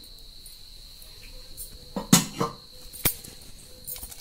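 Kitchen utensil clatter as salt is added to soaked black-eyed peas in a pressure-cooker pot: a couple of knocks about two seconds in, then a single sharp click about a second later. A thin steady high-pitched tone runs underneath.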